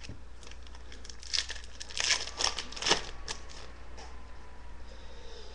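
Crinkling and rustling of a hockey card pack and its cards being handled, in a cluster of short scratchy bursts between about one and three and a half seconds in.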